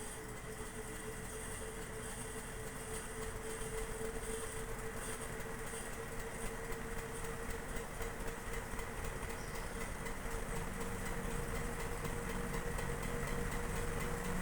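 A 56-inch industrial ceiling fan running on test, with a steady motor hum over a constant rush of noise that grows gradually louder.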